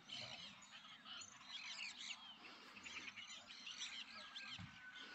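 Many wild birds calling together, a faint chorus of overlapping chirps, whistles and sweeping notes.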